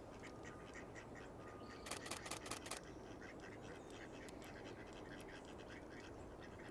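A camera shutter firing a rapid burst of about seven frames, about two seconds in, lasting under a second. Before it a faint thin steady whistle sounds.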